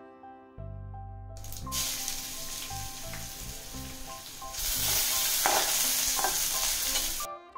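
Chopped garlic sizzling in hot oil with fennel seeds in an aluminium kadai, stirred with a spatula. The sizzling starts about a second and a half in, gets louder about halfway and stops just before the end, with background music underneath.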